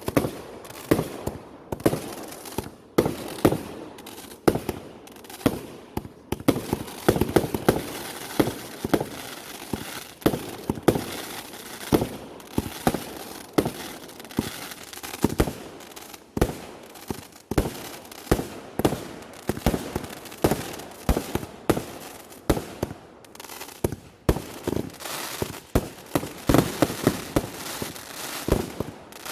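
Fireworks going off: a long, irregular run of sharp bangs, about one or two loud ones a second, with crackling between them.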